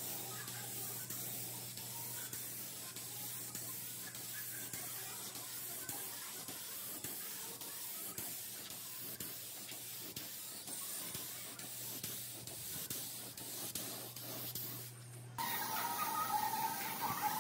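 Steady hiss of a spray with a low hum beneath it, cutting off suddenly about fifteen seconds in as music starts.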